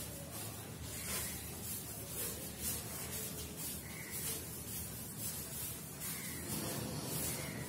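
Blackboard duster wiping chalk off a blackboard in repeated strokes, each a short rubbing hiss.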